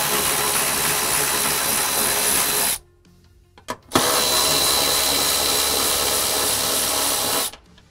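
Cordless power ratchet with a 14 mm socket running in two steady bursts of about three seconds each, with a brief pause between them, backing out the bolts that hold the seat mount to the chassis.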